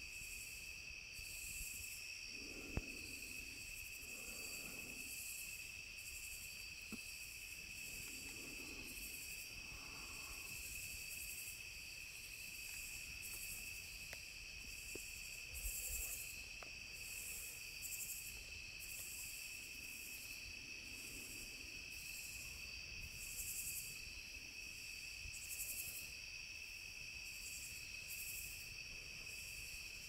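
Nighttime insect chorus of crickets: a steady high trilling with a faster pulsing shimmer above it, joined by a few faint low sounds and a light tick about three seconds in.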